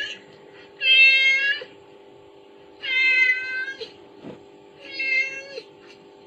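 A cat meowing three times, evenly spaced about two seconds apart, each meow under a second long.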